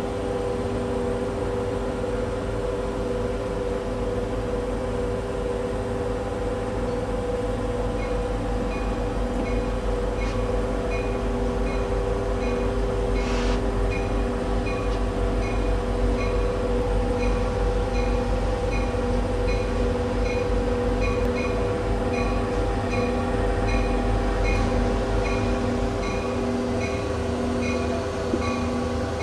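Reading & Northern diesel train approaching slowly, with a steady low rumble and hum. From about eight seconds in, a bell rings at an even pace.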